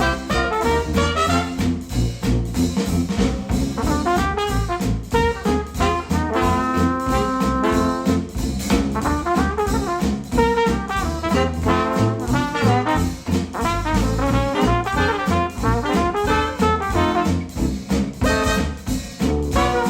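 Instrumental music with a steady beat, heavy bass and brass-like melody lines, played through Polk Audio R200 bookshelf speakers driven by a NAD C 338 integrated amplifier.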